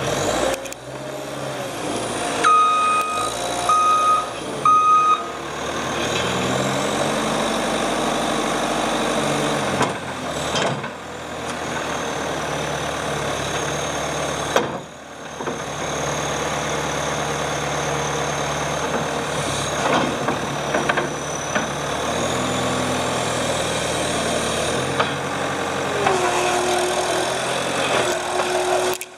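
Caterpillar 246C skid steer loader's diesel engine running under work, its pitch rising and falling with load, with a back-up alarm beeping three times a few seconds in.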